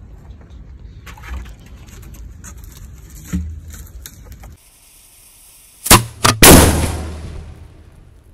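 Rustling and knocks of a 10-inch ball shell being handled at its mortar tube, then a fuse hissing. A little later come two sharp bangs and a third, loudest blast that rumbles on for over a second: the large firework shell firing.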